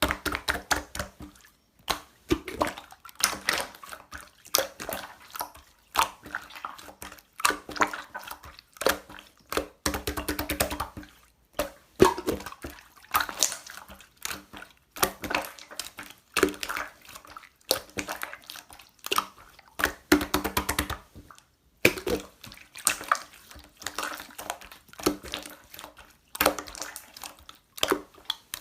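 Slime being squeezed, poked and stretched by hand, making a dense, irregular run of wet clicks, pops and squelches, with a quick rattle of clicks about ten seconds in.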